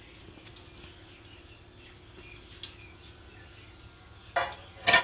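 Whole spices (cinnamon, cloves, cardamom and bay leaves) sizzling faintly in oil in a large aluminium pot, with scattered light crackles. A short, louder noise comes near the end.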